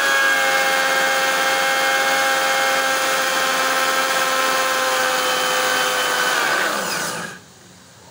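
Electric mixer grinder with a steel jar running steadily at high speed, grinding spinach leaves into paste. Near the end the motor is switched off and winds down with a falling pitch to a stop.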